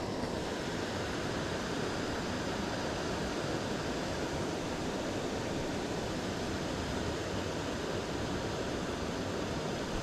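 Steady, even rushing of a small waterfall pouring into a river pool.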